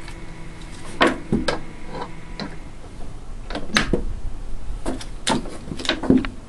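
Footsteps crunching in deep snow, about a dozen uneven steps. A faint steady hum runs under the first couple of seconds.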